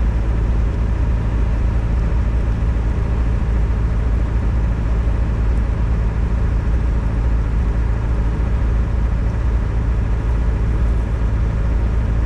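A steady, unchanging low engine drone, like a motor running at idle.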